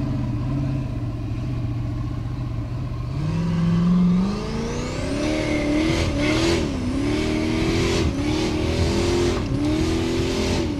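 Engine of a Formula Offroad street-legal-class jeep running steadily at low revs, then revving up about three seconds in and surging up and down at high revs under hard load as it climbs a steep dirt slope.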